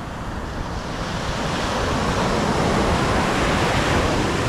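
Ocean surf breaking on a beach: the rush of a wave builds over about two seconds, holds, and starts to ease near the end.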